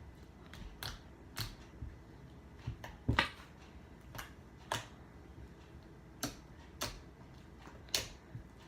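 Fingers poking slime, making short wet clicks and pops at an uneven pace of about one or two a second.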